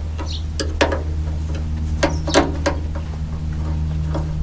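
A few short metallic clicks and taps as a Torx bit is tried in the door latch screws and does not fit, over a steady low hum.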